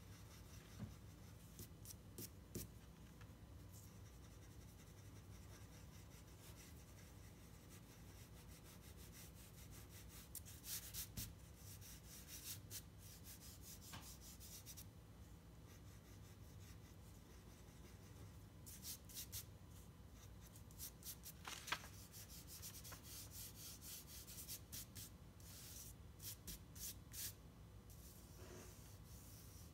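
Faint scratching and rubbing of a graphite pencil shading on drawing paper, in groups of short strokes with pauses between, over a low steady room hum.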